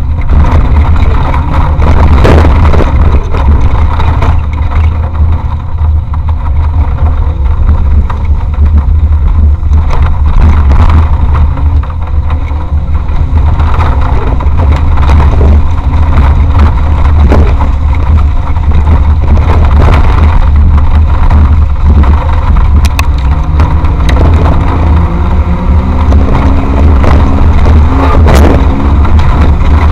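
Off-road race vehicle driving hard over rough ground, heard onboard: a loud, constant low rumble of engine and running gear with occasional knocks and bangs, and the engine's pitch climbing as it revs up near the end.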